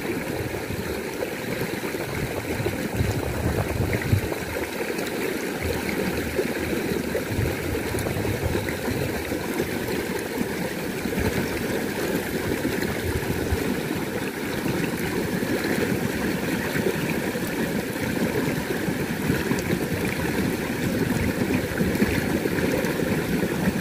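Water of a small stream running steadily.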